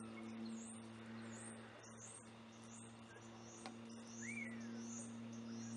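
Birds calling: many short, high chirps and whistles, with one clearer whistle that rises and falls about four seconds in. A single sharp click sounds a little before it, and a steady low hum runs underneath.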